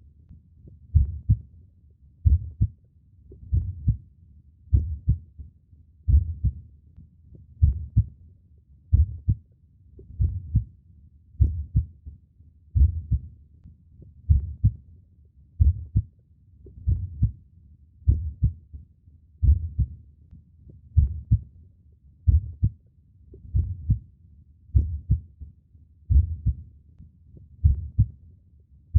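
Human heartbeat: a slow, steady lub-dub, each beat a low double thump, repeating a little under every second and a half.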